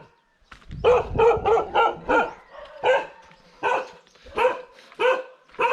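Dogs barking at a stranger: a quick run of barks, then single barks spaced about three-quarters of a second apart.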